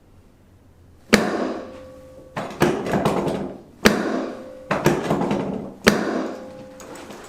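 A series of about seven sharp knocks, each with a ringing decay, during a chiropractic hip adjustment. The first is the loudest, and some come in quick pairs.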